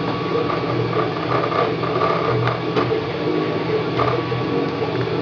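Wanhao Duplicator 3 desktop 3D printer printing: its stepper motors whir in shifting tones as the print head moves, over a steady hum, with a few light clicks.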